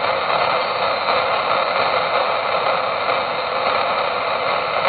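Galaxy DX 95T radio tuned to 27.475 MHz, giving out steady hiss and static through its speaker on an open channel with no station coming through.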